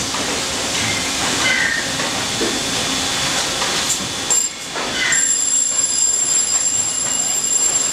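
Automated plastics-forming machine running, with a steady hiss of compressed air and short squeaks now and then. A steady high whine sets in about halfway through.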